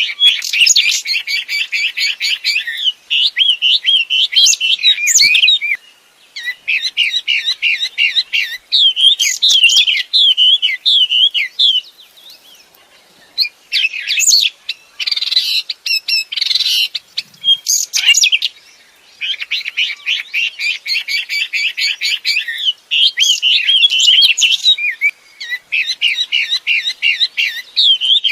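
A wambi songbird singing loudly: long phrases of rapid, repeated high chirping notes, in runs of several seconds broken by short pauses.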